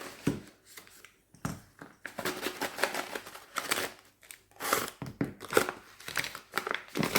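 Packaging of a diamond painting tool kit being handled: irregular rustling and crinkling with short sharp clicks, in fits and starts.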